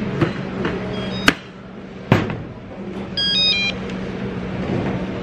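A handheld barcode scanner gives a short beep with a click, and there is a thump as a large flat box is handled. About three seconds in, the self-checkout machine sounds a quick run of stepped electronic tones, its error alert for a failed scan. A steady store hum sits underneath.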